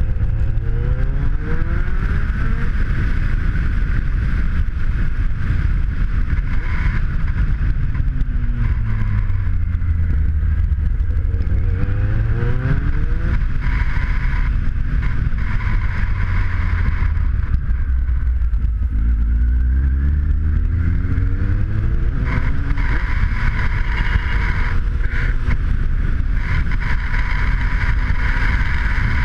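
Kawasaki Z750 inline-four motorcycle engine, heard from the rider's seat, rising and falling in pitch several times as it accelerates and eases off, under steady wind noise on the microphone.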